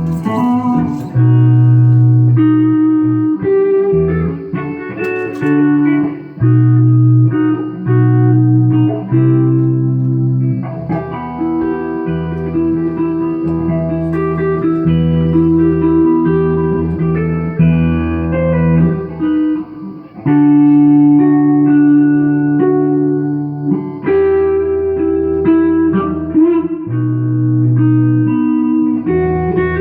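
Electric guitar, a rebuilt Takamine GX-100 with its original DiMarzio pickups, played through a small lunchbox-style tube amp. Held chords change every second or so, mixed with quicker single notes, and several heavy low notes ring out louder.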